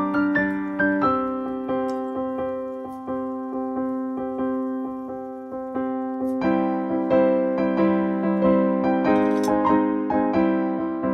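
Background piano music, notes struck one after another and dying away, growing fuller about six and a half seconds in.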